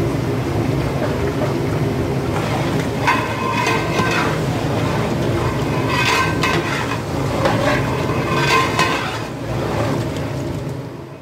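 Long metal ladle scraping against the inside of an aluminium cooking pot as a chicken and potato curry is stirred, in a few clusters of scrapes about three, six and eight seconds in, over a steady low hum.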